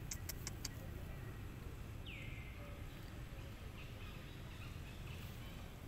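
Outdoor ambience with a steady low rumble. There are a few sharp clicks just after the start, and about two seconds in a short whistled call slides down in pitch and then holds, followed by faint chirps.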